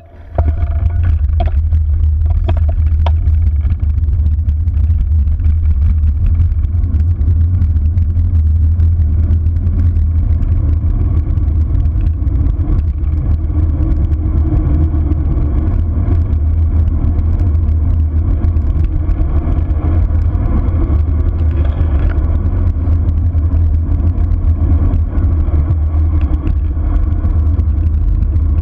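Wind buffeting a bicycle-mounted action camera's microphone at speed on a road-bike descent: a steady, loud, low rumble, with road noise from the tyres underneath.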